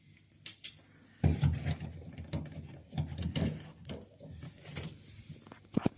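Handling noises of a washing machine's plastic drain pump filter: a click, then about four seconds of irregular rattling and scraping, and a few sharp clicks near the end.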